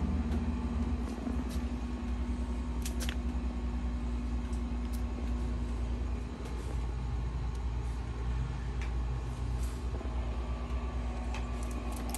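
A motor vehicle's engine running as a steady low rumble with a constant hum, with a few faint clicks.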